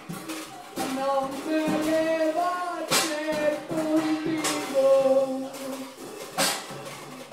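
A man sings a slow melody of held notes, accompanied by sparse drum-kit and cymbal strokes. The two loudest cymbal strikes come about three and a half seconds apart.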